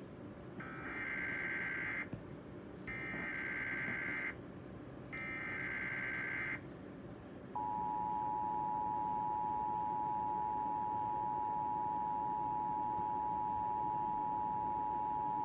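Emergency Alert System alert: three short bursts of SAME digital header data, each about a second and a half, then the steady two-tone EAS attention signal held for about eight seconds, over faint hiss. The alert announces a National Weather Service severe thunderstorm warning.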